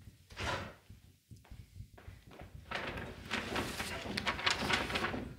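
Crinkling and rustling of a shiny foil gift bag as hands rummage in it, beginning a little before halfway and lasting until just before the end. A short rustle of a jacket being pulled off comes first.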